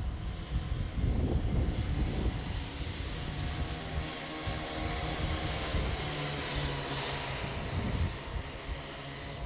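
Small go-kart engines buzzing as children's karts race around the track, the engine note growing clearer and steadier in the middle of the stretch.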